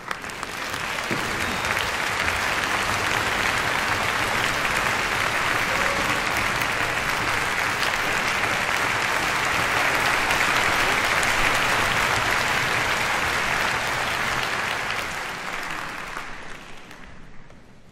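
Concert-hall audience applauding: the clapping builds up within the first two seconds, holds steady, then dies away over the last few seconds.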